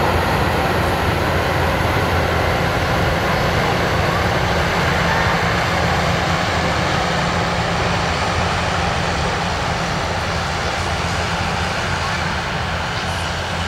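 Jet engines of an Airbus A320 running loud and steady during its landing rollout, slowly fading as the airliner slows and moves away.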